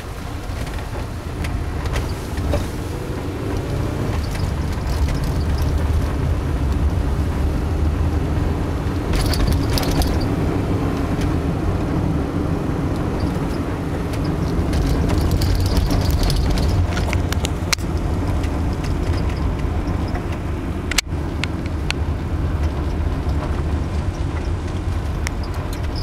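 Steady road and engine rumble of a moving car heard from inside the cabin, with one sharp click late on.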